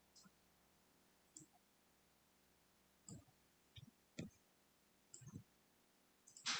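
Faint computer mouse clicks, about half a dozen spread irregularly, with a louder click near the end.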